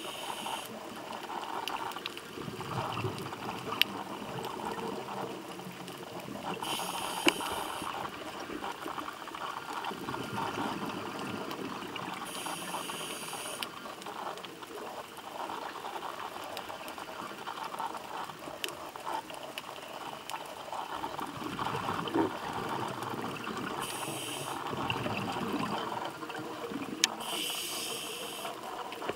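Scuba diver breathing through a regulator underwater: several short hissing inhalations and longer swells of rushing, bubbling exhaust air a few seconds apart.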